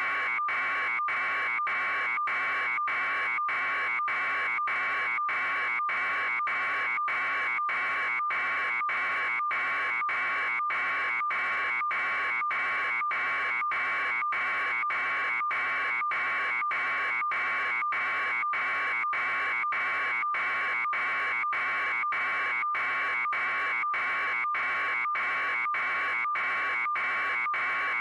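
A steady, harsh electronic buzz, broken by short, evenly spaced dropouts about twice a second.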